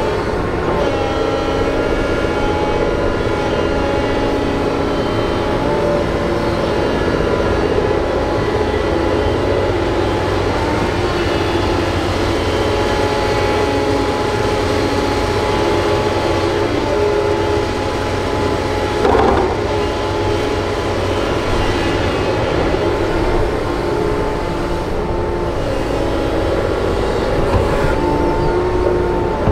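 Doosan DX225LCA excavator working under load: its diesel engine and hydraulics give a steady drone with several held tones as it digs soil and dumps it into a truck. A single knock comes about two-thirds of the way through.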